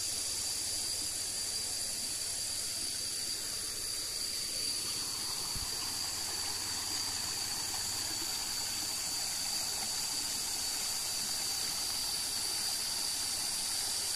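Shallow stream running and trickling over rocks, with the water sound a little fuller from about five seconds in. Over it runs a steady, high-pitched drone.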